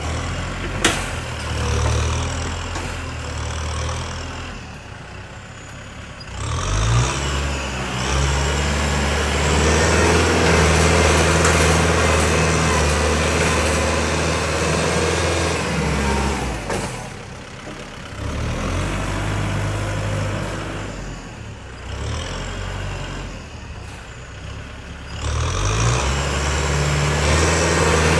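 Heavy diesel engines of earthmoving machinery and dump trucks working, the engine note rising under load and dropping back toward idle several times. A single sharp knock about a second in.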